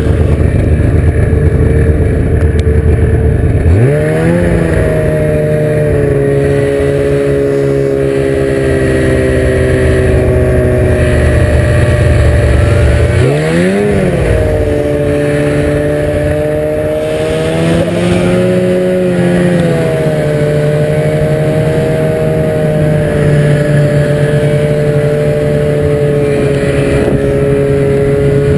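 Ski-Doo MXZ 800X snowmobile's two-stroke twin engine running at speed. It revs up sharply about four seconds in and again about halfway through, with a smaller change in pitch a little later, and runs at a steady pitch in between.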